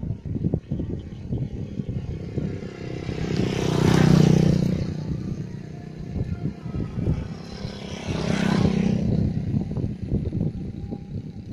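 Two motorcycles passing by on the road, one about four seconds in and another about eight seconds in, each growing louder and then fading away. Wind rumbles on the microphone throughout.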